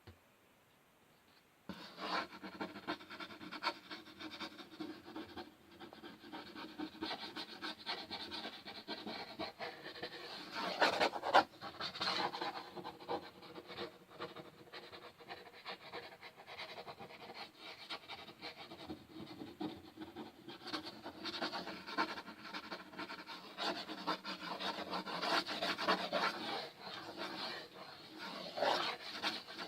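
Fingers rubbing and scratching on a wooden surface, a continuous dry rasp. It starts about two seconds in, with louder strokes near the middle and again near the end.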